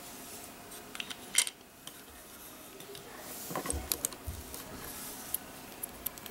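Small plastic toy pieces being handled and clicked together: a few sharp clicks about a second in, then a run of light clicks and knocks in the second half.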